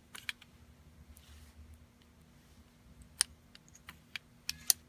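Metallic clicks of an FX Impact .30 air rifle's side-lever action being cycled, cocking and closing, to check that it works after reassembly. A couple of clicks just after the start, then a quick run of sharper clicks in the last two seconds.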